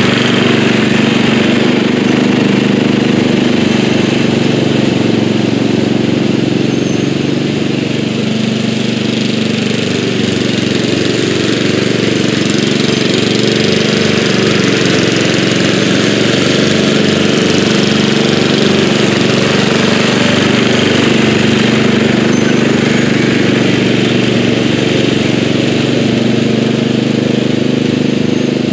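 1983 Bolens G11 LT lawn tractor's 11 hp Briggs engine, built up with raised compression and a different cam, running steadily under load as the tractor mows tall grass.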